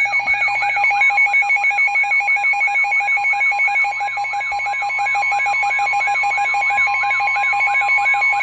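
Weather alert alarm: a siren-like tone sweeping up and down about three times a second over pulsing beeps. About a second in it is joined by the steady NOAA Weather Radio warning tone, the 1050 Hz tone that heralds a warning broadcast.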